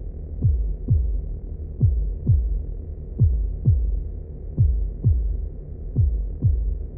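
Heartbeat sound effect at 90 beats a minute: deep, low thumps in lub-dub pairs, one pair about every 1.4 seconds, over a steady low hum.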